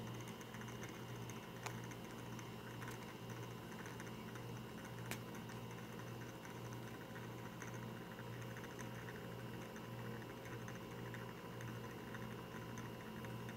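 Water-filled plastic spinning top spinning on a tile floor: a low hum that pulses at a steady slow rate, with fine ticking and pattering of its tip on the tile. Two sharper clicks come about two and five seconds in.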